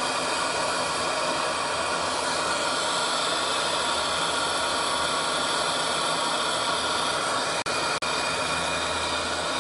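Oxygen-and-gas lampworking torch burning with a steady hiss while a glass rod is melted in its flame. The sound drops out twice for an instant near the end.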